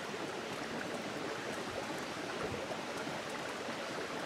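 Steady rushing of a creek mixed with the hiss of pancake batter sizzling on a hot cast iron griddle over a campfire, with a few faint crackles.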